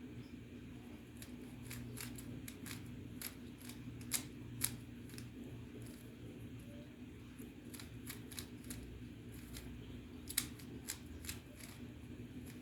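Plastic Rubik's cube being turned by hand: irregular clicks as its layers rotate, with a few louder snaps, over a steady hum.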